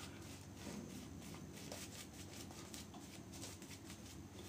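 Faint, soft strokes of a boar-hair shaving brush working mint shaving cream into lather on the face, several a second and uneven.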